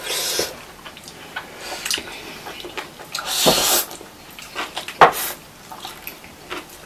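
Close-up eating sounds of chow mein noodles being slurped, with a short slurp at the start and a longer one about three seconds in, and a sharp click about five seconds in.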